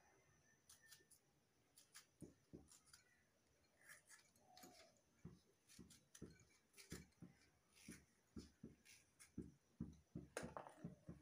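Quiet, scattered clicks and soft cuts of a kitchen knife working through a tomato held in the hand, with pieces dropping into a small steel bowl; the clicks come thicker near the end.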